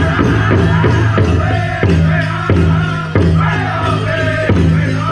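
Powwow drum group singing a chicken dance song: a big drum struck in a steady beat about every two-thirds of a second under high-pitched group singing in falling phrases.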